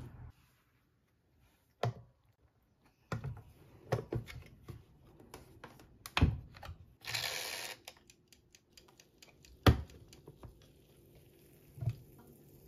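Clicks and knocks from handling an electric sandwich maker, with its plastic lid closed with a low knock about six seconds in and opened with another knock near ten seconds. A brief hiss comes about seven seconds in.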